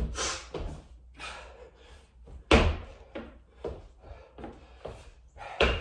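Thuds of a person doing burpees on a floor: hands and feet striking down, the hardest landing about two and a half seconds in and another near the end, with smaller knocks and heavy breathing between.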